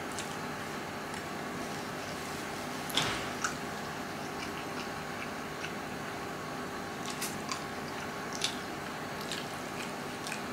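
A person chewing a mouthful of instant noodles, with scattered short wet mouth clicks and smacks; the clearest is about three seconds in, and a few more come between about seven and eight and a half seconds. A steady faint hum runs underneath.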